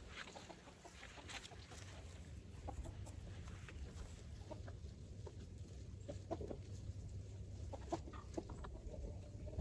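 Faint, scattered clucking calls of birds over a low steady hum, with small ticks.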